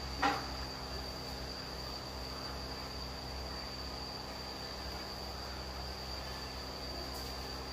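Steady high-pitched insect trilling that runs unbroken, with a low steady hum beneath it. A single short, louder sound comes about a quarter of a second in.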